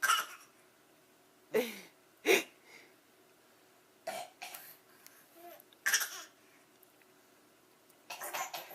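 Short, deliberate fake coughs from an adult and a small child taking turns, about half a dozen bursts a second or more apart; the loudest two come about one and a half and two and a half seconds in.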